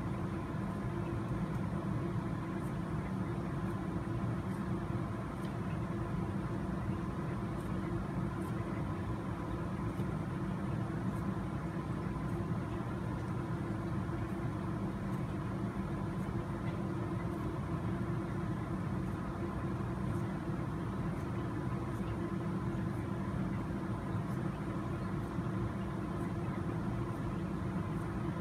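A steady low hum, like a fan or other machine running in the room, with faint irregular snips of body scissors cutting a foam tire insert.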